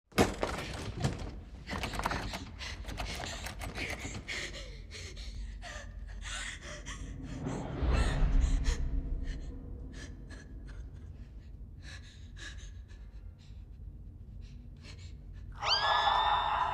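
A person gasping and breathing hard, over scattered short sharp sounds, with a deep low rumble about eight seconds in. Near the end a loud, steady tone of several pitches swells in with a rising glide.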